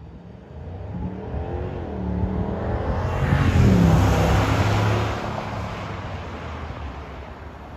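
2022 Subaru Forester Wilderness's flat-four engine and tyres as it weaves through a cone slalom and passes close by. The engine note rises and falls as it steers, is loudest around the middle, then fades away.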